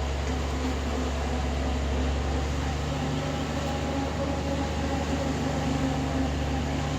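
Excavator's diesel engine running steadily under work, a constant low drone with a faint whine above it.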